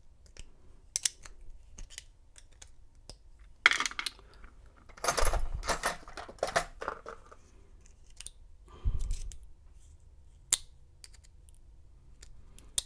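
Metal clicks, taps and clatter of a Master Lock 930 padlock and its small parts being handled as it is forced back together, with a busier run of clatter about five to seven seconds in and a dull knock near nine seconds.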